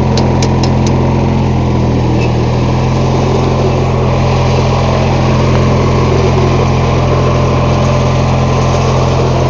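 MTD lawn tractor engine running steadily at an even speed, with a quick run of sharp clicks in the first second.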